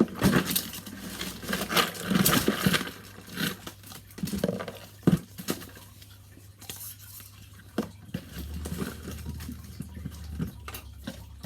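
Plastic fidget toys being handled and rummaged through: irregular clattering, rustling and clicking, busiest in the first few seconds, with one sharp click about five seconds in.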